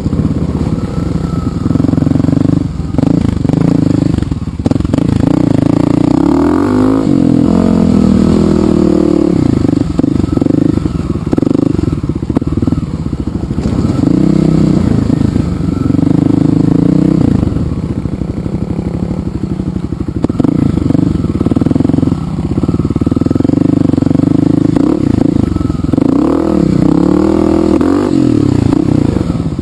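Dirt bike engine running under way on a rough gravel trail, its pitch rising and falling with throttle and gear changes. A few short knocks from the bumpy ground come through.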